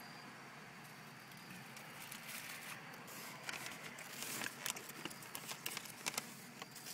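Steady low hum of a car interior, with irregular small clicks and crackles starting about two seconds in as a baby handles and eats food close to the microphone.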